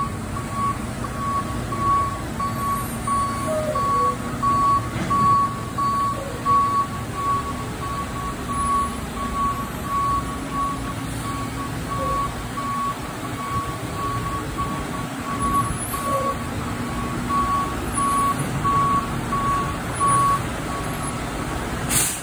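Front-loader garbage truck backing up, its reversing alarm giving a steady series of high beeps over the running engine. The beeping stops near the end as the truck pulls forward.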